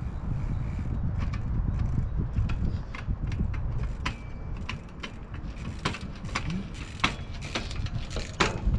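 Wind buffeting the microphone as a steady low rumble, with a run of sharp clicks and light knocks from the trials bike, most of them in the second half.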